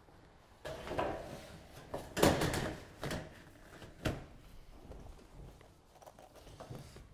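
Corrugated COLORBOND steel roofing sheet being handled and laid onto the roof: the thin metal sheet flexes and rattles, with scrapes and knocks as it is set down and pushed into place over the previous sheet, loudest about two seconds in.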